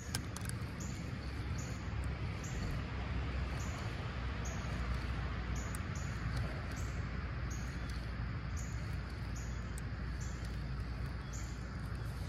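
Creek water flowing steadily, with a short, high chirp repeating every half second or so above it.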